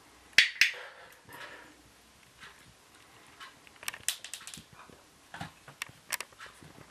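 A training clicker clicks once, sharply, about half a second in, marking the kitten's touch on the target ball. Softer ticks and smacking follow as the kittens lick treats from fingers.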